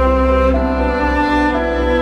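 Slow, sad-sounding background music led by bowed strings, with long held notes changing about every half second over a steady low drone.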